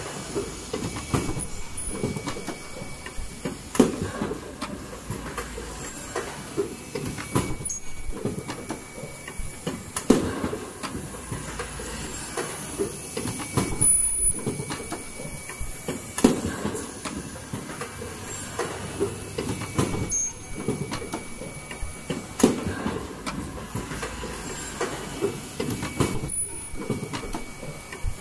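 Automatic N95 cup mask machine running: a steady clatter from its chain conveyor and stations, with a louder mechanical surge every two to four seconds as it cycles through each mask.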